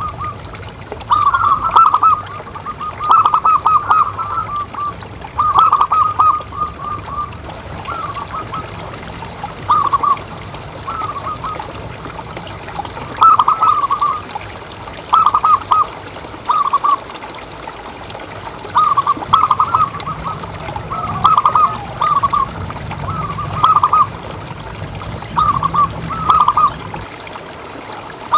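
Zebra dove calling: repeated phrases of quick staccato cooing notes, one phrase every one to two seconds.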